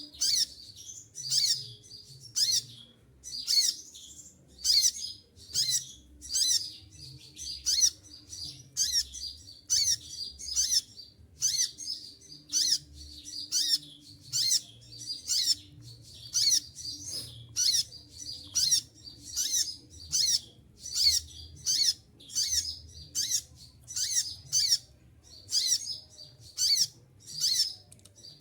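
Kolibri ninja (konin) sunbird calling over and over: short, sharp, high-pitched chirps about once every second without a break.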